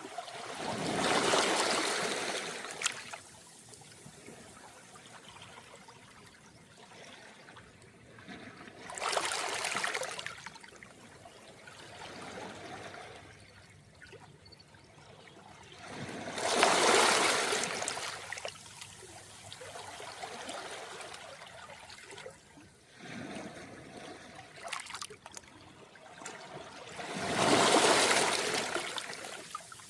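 Calm sea waves washing up a beach of smooth round pebbles: four gentle surges, each rising and falling over about two seconds, with a soft trickling hiss and faint small clicks between them.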